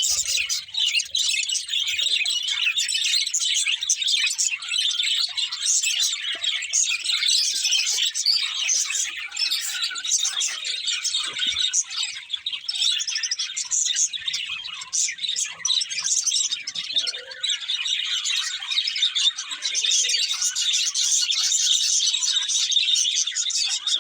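Budgerigars chattering with rapid chirps and warbling.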